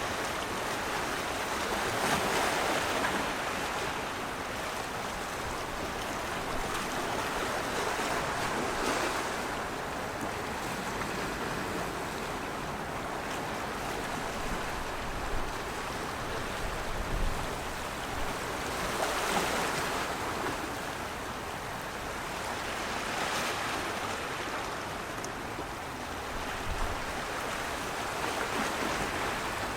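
Continuous rushing water, a steady wash of noise that swells and eases every few seconds.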